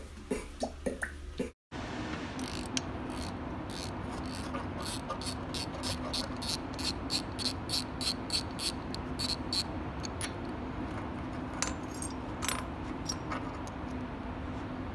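Socket ratchet clicking in a long, even run of about three clicks a second as a spark plug is worked loose from an aircraft engine cylinder, over a steady low hum. A few single clicks follow near the end.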